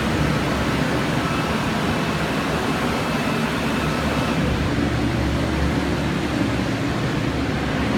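Steady rushing noise with no clear events, carrying a faint high whine for a few seconds in the first half.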